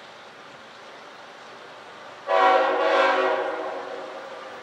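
Train horn sounding one blast of about two seconds, starting suddenly a little past two seconds in and fading away.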